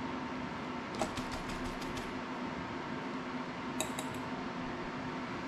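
Light clicks and taps of small tools and drone parts being handled on a work table: a quick run of clicks about a second in and two more near the four-second mark, over a steady hum.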